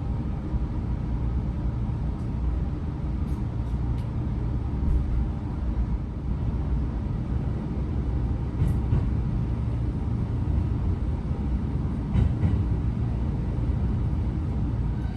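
Steady low rumble of a passenger train running, heard from inside the carriage, with a few faint clicks.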